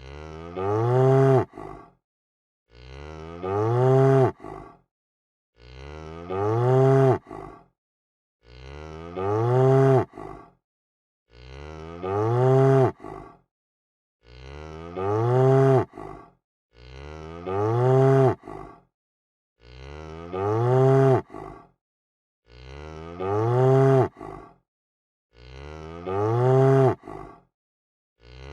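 A cow mooing: one short call that swells and rises in pitch, then drops and ends, repeated identically about every three seconds as a looped recording.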